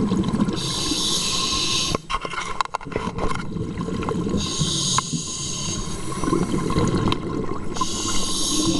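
A scuba diver's breathing heard underwater: three long hisses of inhaling through the regulator, a few seconds apart, alternating with the low gurgle of exhaled bubbles.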